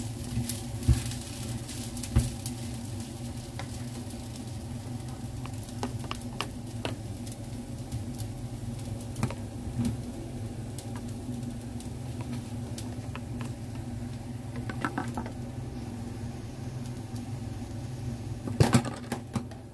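Plastic spatula stirring and tapping fried rice in a nonstick frying pan: scattered clicks and scrapes, with a short run of louder knocks against the pan near the end, over a steady low hum.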